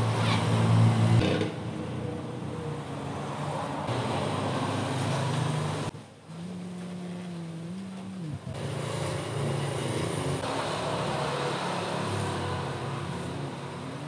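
Low engine hum of motor vehicles running nearby, drifting and bending in pitch, over general outdoor background noise. It changes abruptly several times.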